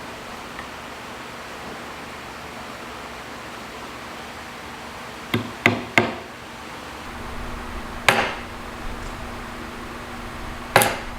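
Five sharp knocks of a tool striking in a woodshop: three in quick succession about five seconds in, then two more spaced a few seconds apart, over a steady background hiss. A low steady hum comes in about halfway through.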